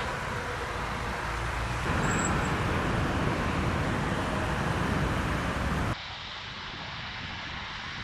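Steady outdoor rumble and hiss, like road traffic with wind on the microphone. It grows louder about two seconds in and drops suddenly about six seconds in.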